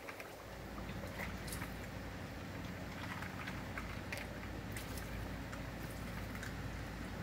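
American Eskimo Dog dunking its muzzle into a plastic bowl of ice water, ice cubes clicking irregularly against each other and the bowl. A steady low hum runs underneath.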